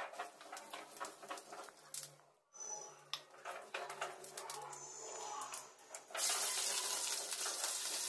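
Scattered light clinks and taps of kitchen utensils, then about six seconds in a loud, steady sizzle of hot oil frying in a steel kadai starts suddenly.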